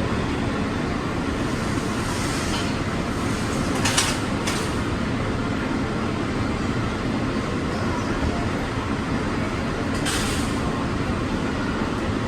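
Bombardier monorail standing at a station: a steady rushing noise with a few short hisses, about two, four and ten seconds in.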